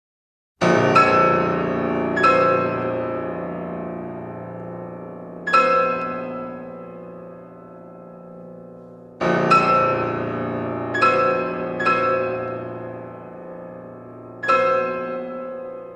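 Slow, sparse solo piano music. Chords are struck every few seconds and left to ring and fade, starting just after a moment of silence.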